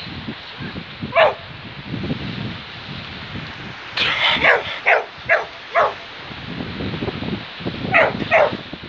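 A dog barking in short, sharp barks: one about a second in, a quick run of about five a few seconds later, and two more near the end.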